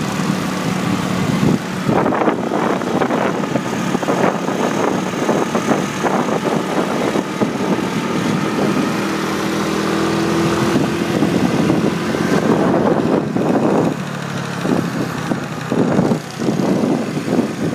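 Motorbike riding along at speed, its engine running under a constant rush of wind, with irregular buffeting on the microphone.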